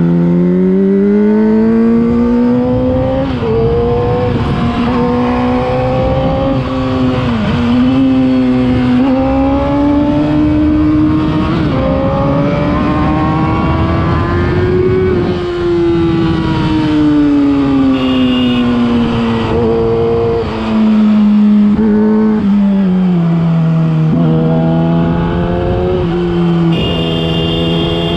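Yamaha R6's 600 cc inline-four engine through a LeoVince aftermarket exhaust, ridden under load. The engine note rises and falls with the throttle, with short dips at gear changes in the first few seconds. It climbs steadily to a peak about fifteen seconds in, then eases back down to a lower, steady note before rising again near the end.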